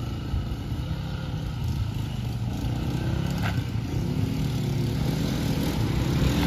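ATV engine running, its note rising and growing louder over the second half.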